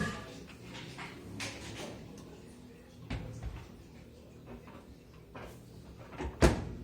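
A few scattered knocks and clunks of something being handled, with the loudest sharp clunk near the end.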